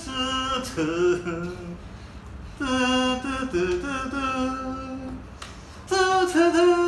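A man singing a wordless tune in long, held notes, in three or four phrases with short breaks between them.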